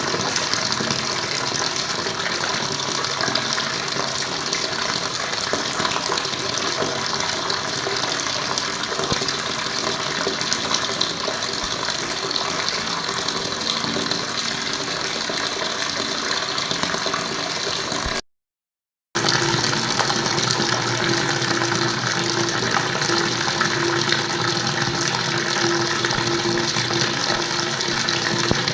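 Running water flowing steadily with a dense, even rushing sound. It cuts out to silence for about a second roughly two-thirds of the way through, then resumes with a steady low hum underneath.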